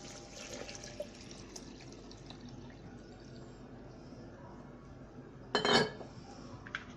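About a litre of water poured steadily from a container into a vessel, filling it. About five and a half seconds in comes a short, loud knock, and a couple of small clicks follow near the end.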